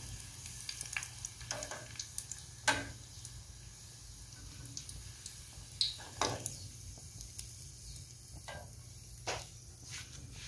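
Pastéis frying in hot pork lard in a small metal saucepan, a steady sizzle. A few sharp clicks and knocks come from a slotted metal skimmer against the pan as the pastries are lifted out.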